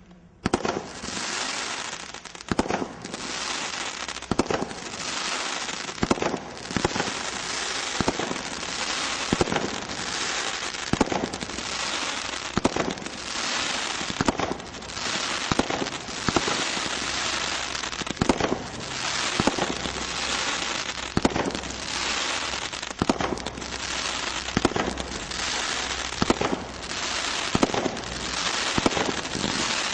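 Multi-shot consumer firework firing, a sharp bang every second or two over a continuous dense crackle, starting suddenly about half a second in.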